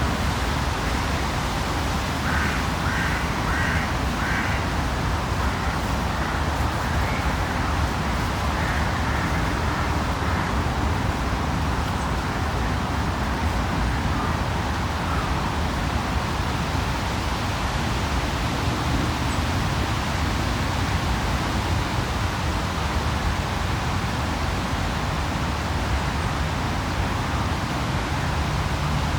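Steady city ambience, a low traffic rumble under an even hiss, with a crow cawing about five times in quick succession a couple of seconds in and a few more times near nine seconds.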